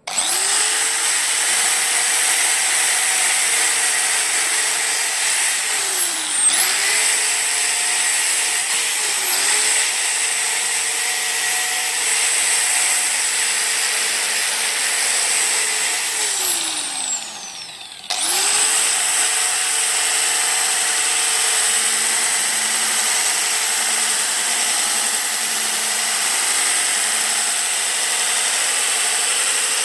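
Angle grinder fitted with a homemade DVD-and-sandpaper disc, running at full speed and sanding paint off iron, its high whine over a steady rasp. The whine dips briefly twice, winds down and stops a little past halfway, then the grinder starts up again and runs steadily.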